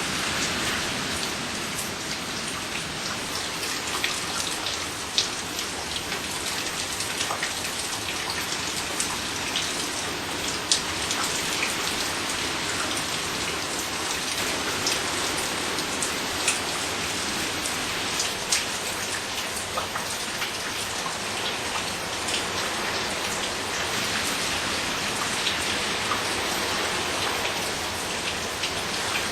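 Steady rain from a hurricane, with many single drops ticking sharply against nearby surfaces.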